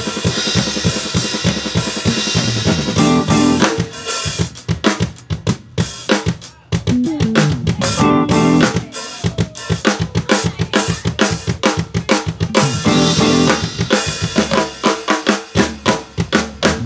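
Acoustic drum kit played hard and fast, with fills and cymbal crashes. The playing thins to scattered separate hits about four seconds in, then builds back into dense fills with heavy cymbal wash.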